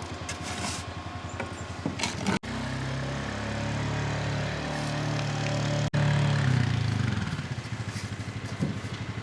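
Jeep engine running: a low pulsing note, then a steadier, slightly higher note under throttle for about four seconds, then back to the low pulsing note.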